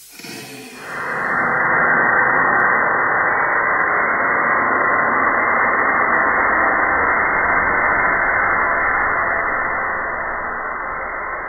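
Ethanol vapour burning inside a plastic bottle shuttle: a steady, muffled rushing noise that starts about a second in and slowly fades near the end.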